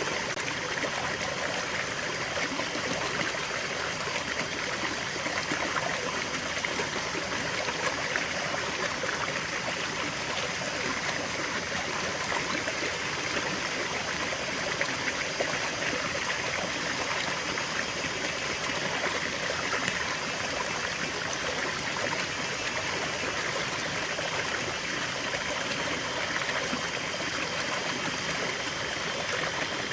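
Small stream of water running and trickling steadily.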